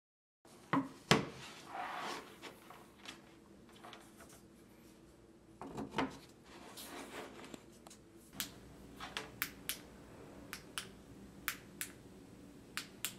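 Wooden lamp parts handled and set on a wooden table: two loud knocks and rubbing from the wooden base, more knocks as the slatted wooden shade is set down, then a run of short sharp clicks from the lamp's inline cord switch.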